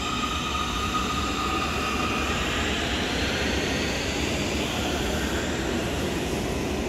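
Munich U-Bahn train pulling out of an underground station: the electric traction motors whine, the pitch rising as it picks up speed, over a steady rumble of wheels on the rails.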